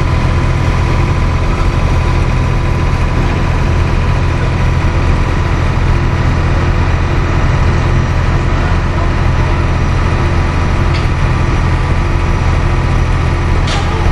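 Mobile crane's diesel engine running at a steady speed during a heavy lift, an even deep drone. Two faint clicks near the end.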